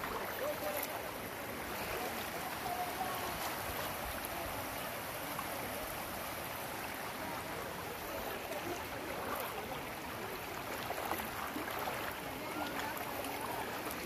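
Shallow creek water rippling steadily over flat rock ledges and stones.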